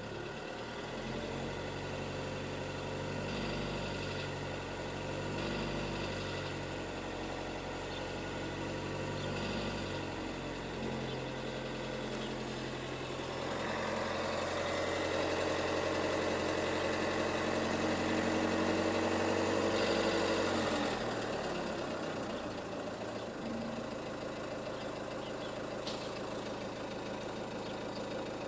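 Renault Megane II's 1.5 dCi four-cylinder turbodiesel running with a metallic knock, which the owner is trying to trace. It idles, is held at higher revs for several seconds in the middle, then drops back to idle.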